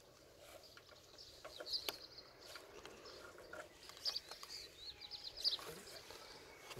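Small birds chirping in short bursts, with soft clicks and rustling from gloved hands pushing wires into a plastic electrical junction box.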